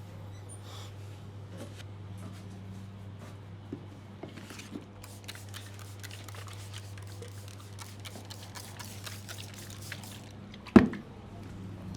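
Head-and-neck massage: faint rubbing, patting and clicking of hands on skin and hair over a steady low hum, then one loud sharp hit near the end.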